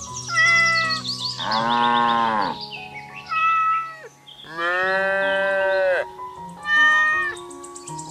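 Cat meowing about five times over light background music, the longest meow about halfway through.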